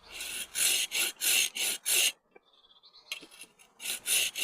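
Hand saw cutting through wood in quick, rhythmic strokes, about two to three a second, with a pause of about a second midway.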